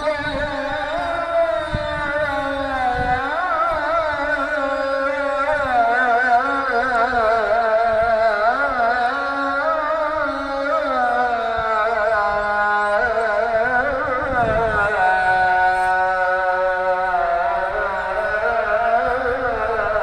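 A single voice chanting a melodic supplication (dua), holding long notes with wavering, ornamented pitch.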